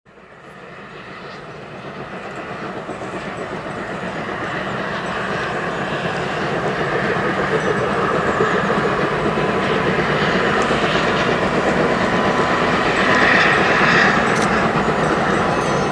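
Two SBB C 5/6 'Elefant' 2-10-0 compound steam locomotives double-heading a train, working steam with their exhaust chuffing running together. The sound grows louder over the first several seconds, then holds steady.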